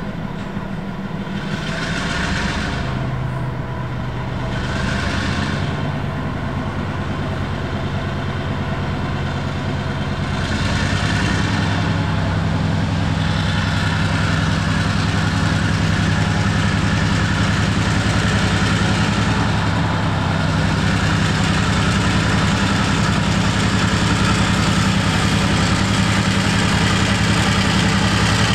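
Diesel locomotive engine running close by, steady and growing somewhat louder from about eleven seconds in, with three short bursts of hiss in the first half.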